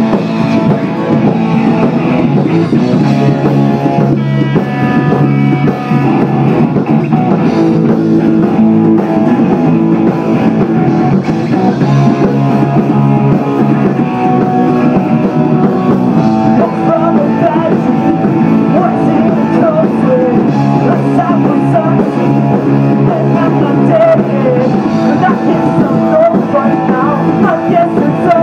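Rock band playing loud and live: guitar, a drum kit and a singer at the microphone, with the music running continuously.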